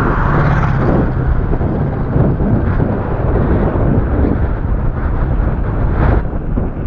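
Wind buffeting the microphone in a steady, heavy rumble, with no clear engine or motor tone.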